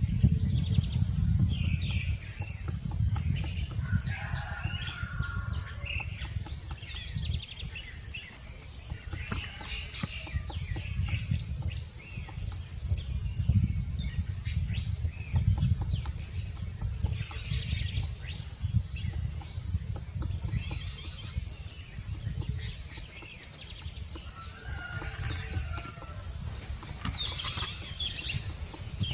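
Forest ambience: a steady high-pitched insect buzz with scattered short bird chirps and calls, over a fluctuating low rumble.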